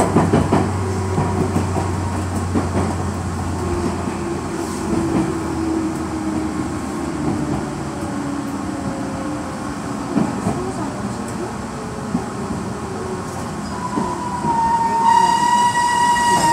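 Tobu Railway electric train heard from the cab, rolling with scattered rail clicks while its motor tone falls in pitch as it slows into a station. Near the end a strong, high, slightly falling squeal with overtones sets in as the train brakes to a stop.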